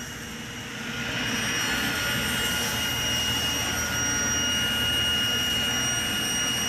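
Table saw running and trimming a plywood panel faced with spalted sycamore veneer, with a steady motor whine. The sound grows louder about a second in as the blade enters the cut and holds steady while the panel is fed through.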